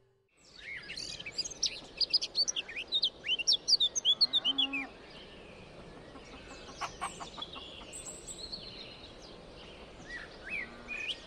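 Birds chirping: a quick run of high, sweeping chirps, then fainter scattered chirps over a low background hum of outdoor ambience.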